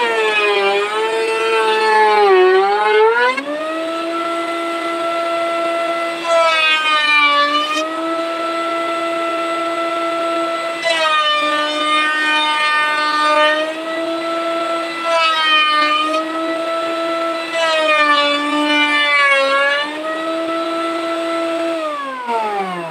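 Table-mounted electric router running at speed with a high whine. Its pitch sags each time the bit bites harder into the wooden board being fed past it, then recovers. Near the end it winds down, falling in pitch as it is switched off.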